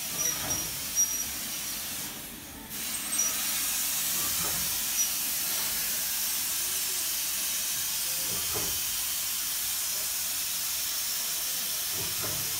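Steam locomotive 3135 "Spartan" hauling a train, heard from an open carriage window as a steady hiss of steam and passing air. The hiss drops away briefly about two seconds in, and a few faint knocks come through later.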